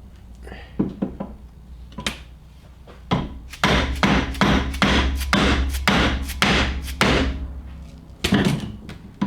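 Mallet blows driving a greased polyurethane insert into a motor mount: a few scattered knocks, then a quick run of about a dozen sharp strikes, roughly three a second, and a last pair near the end.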